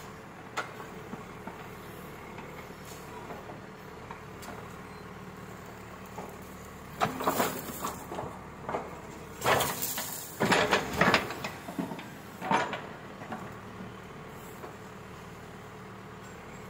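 Caterpillar backhoe loader's diesel engine running steadily. From about the middle, a run of loud clanks and rattles as the bucket dumps its load of earth into a trailer.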